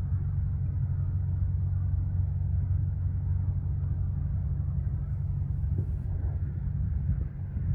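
Four-cylinder piston engine of a 1976 Piper PA-28R-200 Cherokee Arrow II running, a steady low rumble that eases off slightly near the end.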